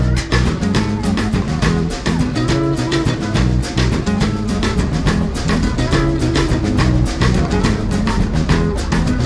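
Background music with a steady beat, guitar and drums.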